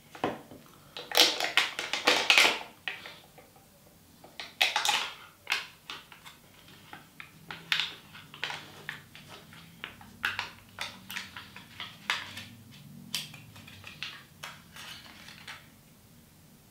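Packaging of a plastic dessert cup being peeled open and crinkled by hand: irregular crackles and clicks, loudest from about one to two and a half seconds in and again around five seconds, then lighter clicks until near the end.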